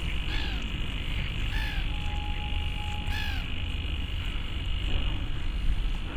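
Pond wildlife: three short arched calls about a second and a half apart, with a long, steady, held whistle between the second and third, over a constant high-pitched chorus and a low rumble.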